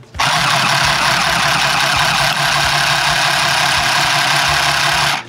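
Handy Stitch battery-powered handheld chain-stitch sewing machine running as it stitches through cotton fabric. It makes a loud, steady mechanical noise that starts suddenly and stops suddenly after about five seconds.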